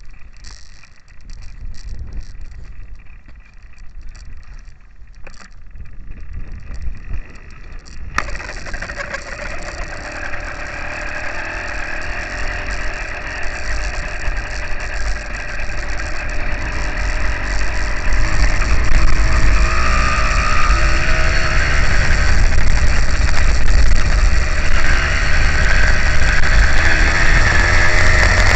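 Motorized bicycle's small two-stroke engine: quiet wind and rolling noise, then the engine suddenly catches about eight seconds in and runs under way, growing steadily louder as the bike picks up speed.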